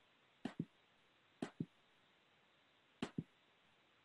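Computer mouse clicking: three quick double clicks, each two sharp clicks close together, about a second or more apart, over faint hiss.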